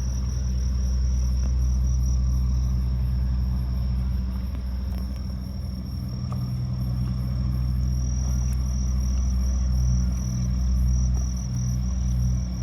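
Insects trilling steadily at a high pitch, the trill turning into evenly pulsed chirps partway through, over a steady low rumble.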